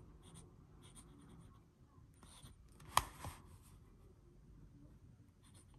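Fountain pen's black steel nib writing on notebook paper: faint, soft scratching of the pen strokes, with one sharp click about three seconds in.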